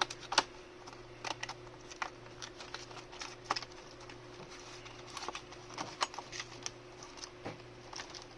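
Small product package being opened and handled by hand: scattered clicks, taps and rustles, over a faint steady hum.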